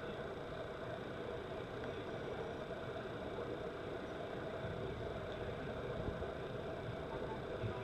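A machine running with a steady hum over a constant hiss.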